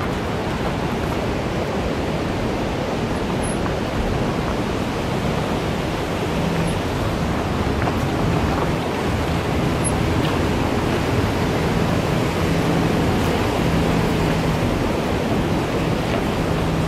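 Suzuki Mehran rolling down a loose gravel road, heard from outside the car: a steady rush of tyre and wind noise, with a faint engine hum that comes and goes beneath it.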